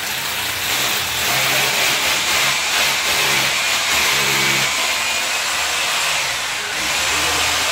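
Corded electric drill running steadily as it bores into a glazed ceramic wall tile.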